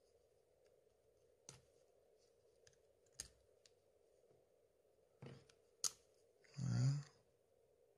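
A few separate sharp clicks as the opened Samsung Galaxy S3 is handled and worked on, over a faint steady hum. A short rushing noise comes near the end and is the loudest sound.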